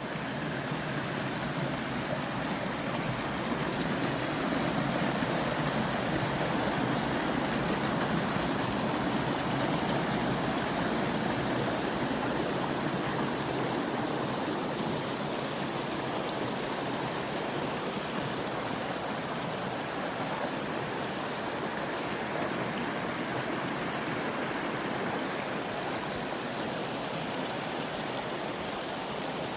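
Running water from a stream, an even, steady rush without a break.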